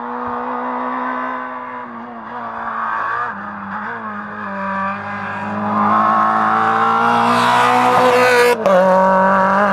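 Citroën C2 rally car at full throttle on a tarmac stage. The engine note rises and falls with gear changes as the car approaches and passes close by, growing loud from about six seconds in, with a brief break in the sound during a shift near the end.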